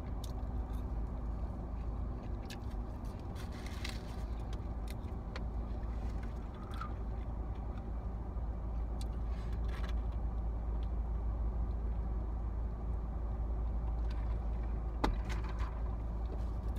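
Steady low rumble of a car heard from inside the cabin, with scattered small clicks of eating, two of them sharper near the end.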